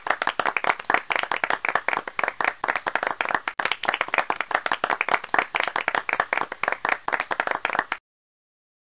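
Applause: hands clapping rapidly and continuously, then cutting off suddenly about eight seconds in.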